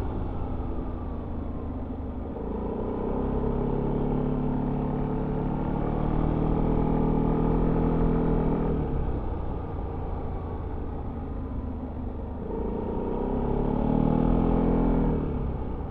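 Yamaha XMAX 300 scooter's single-cylinder engine with stock exhaust, heard on board while riding. It rises in pitch under throttle for several seconds and drops off sharply about nine seconds in. It pulls up again and eases off near the end, over a steady low rumble.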